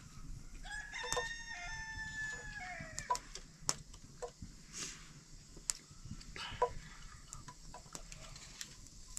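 A rooster crowing once, one long call of about two seconds that drops in pitch at the end. A few sharp clicks follow through the rest.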